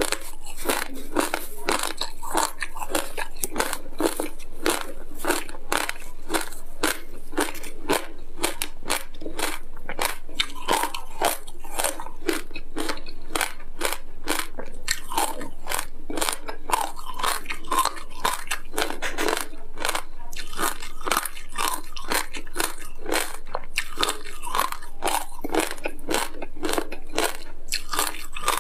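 Close-miked biting and chewing of frozen passion fruit coated in sesame seeds: the ice crunches and crackles in a quick, unbroken run of sharp cracks.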